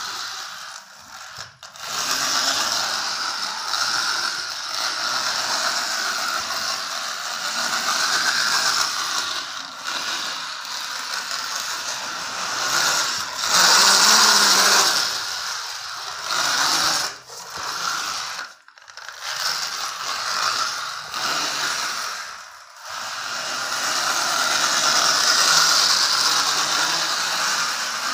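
Plastic toy tractor and trailer pushed along a concrete floor: its plastic wheels and mechanism give a steady rattling whir that breaks off briefly a few times.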